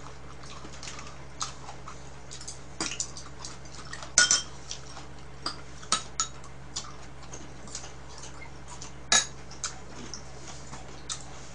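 Chopsticks clicking and clinking against bowls and plastic side-dish containers as food is picked up, a scatter of short irregular knocks. The sharpest clinks come about four and nine seconds in.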